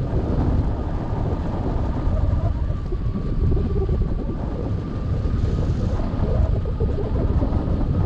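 Rushing airflow buffeting the microphone of a camera mounted on a hang glider in flight, a loud, steady rumble, with a faint steady high tone running under it.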